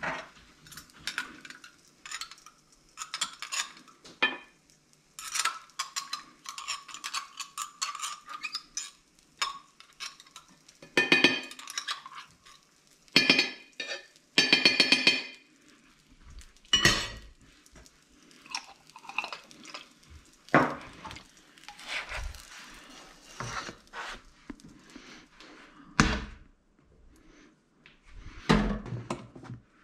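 Kitchen handling noises: a small jar's lid being twisted open, and a knife clinking and scraping against a plate and the jar. A few heavier knocks come later as things are set down on the counter.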